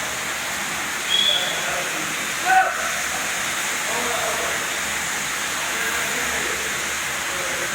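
Automatic carpet-washing machine running with a steady hiss of spraying water. Two short high-pitched sounds stand out, a little over a second in and at about two and a half seconds in.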